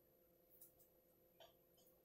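Near silence: room tone with a faint steady hum and a few faint ticks.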